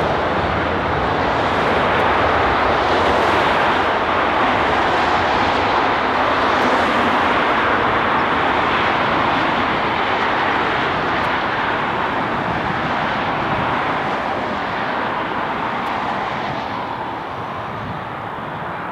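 Airbus A380's four jet engines at take-off thrust during the take-off roll: a steady, heavy rumble that slowly fades over the last few seconds as the airliner draws away.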